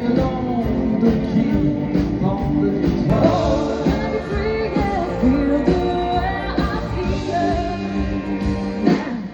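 Pop-rock song with a lead singing voice over a full band mix.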